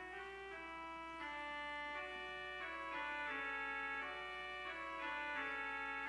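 Two-manual church organ playing slow, sustained chords, the notes changing about once or twice a second and growing a little louder about three seconds in.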